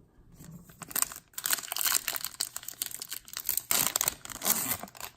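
Crinkling and tearing of a trading-card pack's foil wrapper as it is ripped open and handled.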